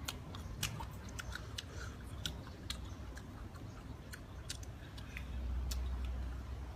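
Crunchy unripe green mango being chewed, a run of short sharp crunching clicks. A low rumble rises about five seconds in and lasts over a second.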